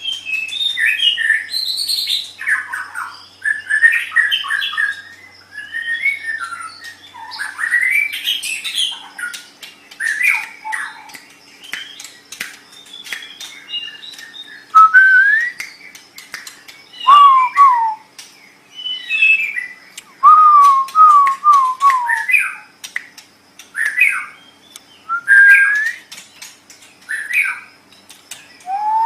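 White-rumped shama (murai batu) singing a varied song: whistled phrases with rising and falling glides, runs of quick repeated notes, and sharp clicks between the phrases.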